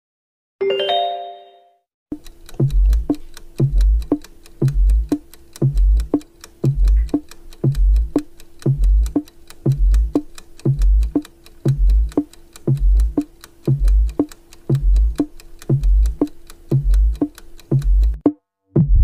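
Quiz countdown-timer music. A short chime sounds, then a steady clock-like ticking with a low thump about once a second runs over a held tone, stopping abruptly just before the end.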